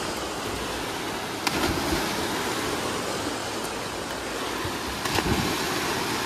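Flooded, fast-flowing river rushing steadily. Two sudden splashes, about a second and a half in and again about five seconds in, as swimmers jump off the causeway into the water.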